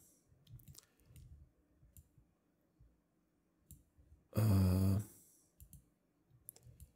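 Computer mouse clicks, faint and scattered. About two-thirds of the way through, a short, louder voiced sound like a brief hum or sigh breaks in.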